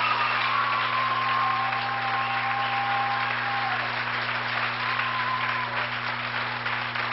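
Audience applauding, right after the music stops, with a steady low hum underneath.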